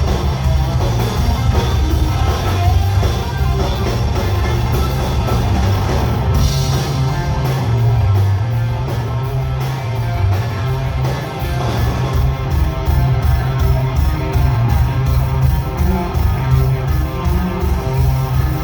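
Live rock band playing: electric guitar over bass and drums, with a steady beat.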